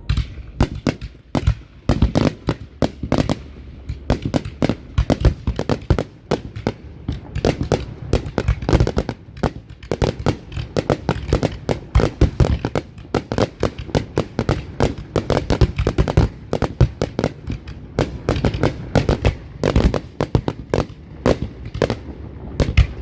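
Aerial fireworks display bursting: rapid, overlapping bangs and cracks, several a second, without a pause.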